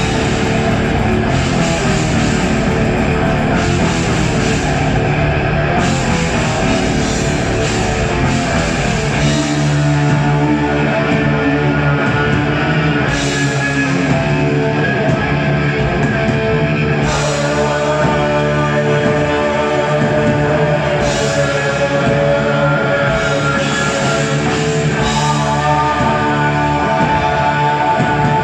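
Live heavy metal band playing at full volume: distorted electric guitars, bass and drum kit with cymbal crashes. About ten seconds in, the deepest low end drops away and long held notes ring out, with a higher melody line over them later on.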